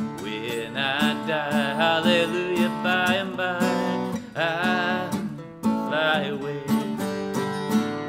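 Acoustic guitar strummed in a steady rhythm, about two strums a second, with a man singing along in held, wavering notes. A last strum near the end leaves the chord ringing.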